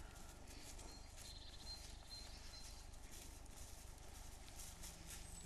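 Quiet forest ambience with faint rustling footsteps on the forest floor and a few faint, short, high bird chirps between about one and two and a half seconds in.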